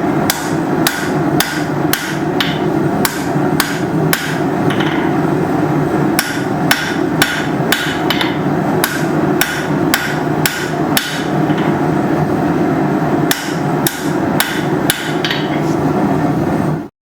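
Hand hammer striking hot steel bar stock on an anvil, drawing out a taper: quick, ringing blows about two a second in runs with brief pauses, over a steady background roar.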